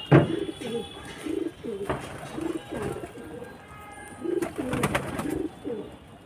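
A flock of domestic pigeons cooing over and over, many low calls overlapping. A loud sharp thump comes just after the start, and a few more sharp sounds come about two-thirds of the way through.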